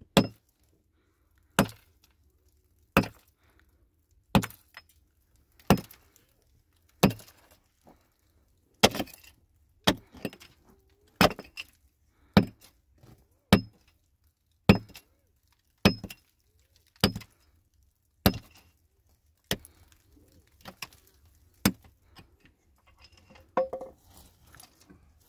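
A hand tool striking over and over, about one sharp clinking blow every second and a quarter, roughly eighteen blows, with quieter knocks and scrapes near the end.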